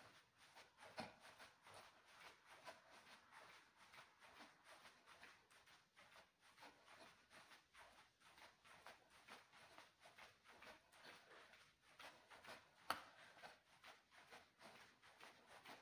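Near silence with a faint, quick, rhythmic patter of footfalls from jogging on the spot, and one sharp click near the end.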